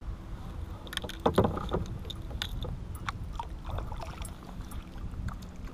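Kayak paddling: water splashing and dripping off a double-bladed paddle over a low steady rumble, with a few sharp knocks about a second in.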